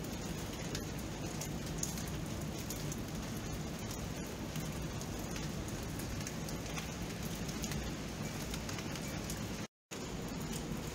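Steady rain falling, a dense patter of small drop ticks over an even hiss. The sound cuts out completely for a split second near the end.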